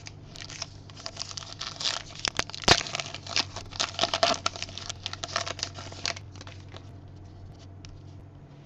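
A baseball card pack's wrapper being torn open and crinkled by hand: a dense crackle that fills the first six seconds, loudest around the middle, then dies away, over a steady low hum.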